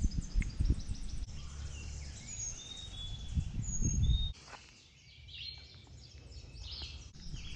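Woodland songbirds chirping and whistling, over a low rumbling noise that drops away suddenly about four seconds in, leaving the bird calls quieter.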